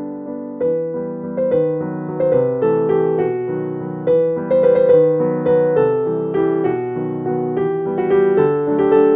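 Background piano music: a gentle melody of struck notes, each dying away.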